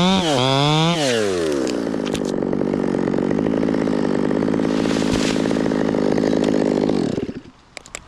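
Two-stroke chainsaw at high revs with its pitch wavering as it cuts. About a second in the throttle is released and it drops to a steady idle. Shortly before the end the engine is shut off and stops.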